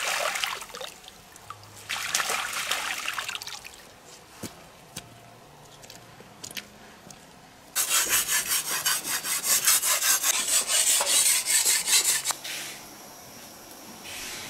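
Kitchen knife being sharpened on a sharpening stone: fast, even back-and-forth scraping strokes, about four a second, lasting roughly four seconds, starting about halfway through. Before that, brief splashing of water as green onions are rinsed in running water.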